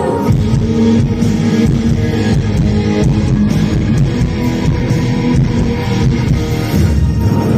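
Band music without vocals: strummed electric guitar over bass guitar, playing steadily.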